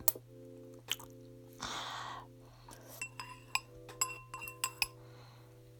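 Tableware clinking: several sharp glass or ceramic clinks with a brief ring, bunched together between about three and five seconds in. A short hiss comes about a second and a half in.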